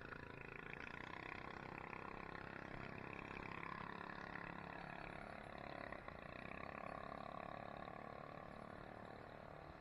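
Many people shouting and calling at once in a steady crowd clamour.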